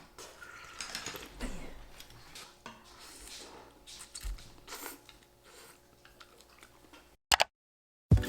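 Faint eating sounds: chewing and small clicks of spoon and chopsticks on a bowl. About seven seconds in they cut off to a moment of silence, and music with a beat starts at the very end.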